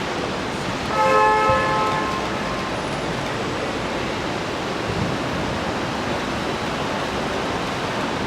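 A bell-like chime rings once about a second in, several tones together fading out within about a second, over a steady hiss of background noise.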